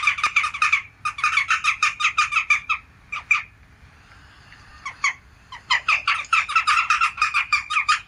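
Recorded jackdaw calls played back from a bird app: short, sharp calls in quick runs of about six a second, with a lull of a few scattered calls around the middle before the runs start again.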